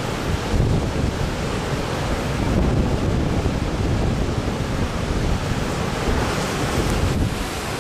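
Heavy ocean surf breaking over a rocky ledge, a steady rush of churning whitewater with a deep rumble underneath. Wind buffets the microphone.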